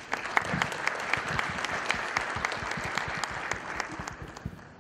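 Audience applauding, a dense patter of clapping that fades out over the last second or so.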